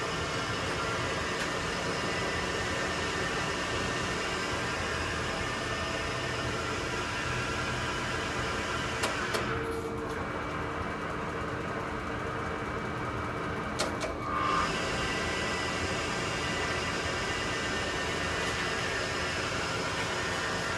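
Boley 5LZ toolroom lathe running, its spindle turning a workpiece in the chuck: a steady mechanical hum, with two clicks near the middle.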